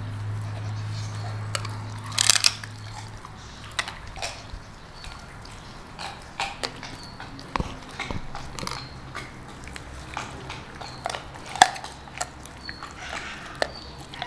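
A Rottweiler chewing a chicken foot, with irregular sharp crunches of the small bones. There is a loud cluster of crunches about two seconds in, then scattered single cracks between slower chewing.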